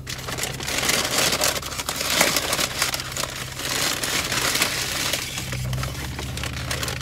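Brown paper takeout bag rustling and crinkling as food containers are pulled out of it, busiest for the first five seconds, over a steady low hum.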